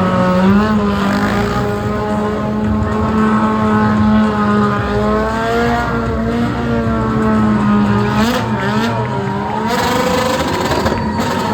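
Stunt motorcycle engine held at high, fairly steady revs, its pitch wavering up and down a little as the rider works the throttle. Near the end a steady high tone joins in.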